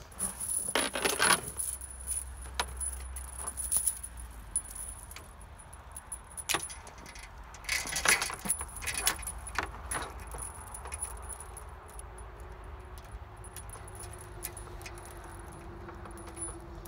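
Light steel chain rattling and clinking as it is handled, with bursts of clinks about a second in and again around eight seconds, and scattered clinks between.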